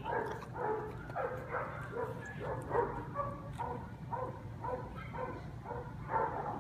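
A dog barking over and over in short barks, about two to three a second.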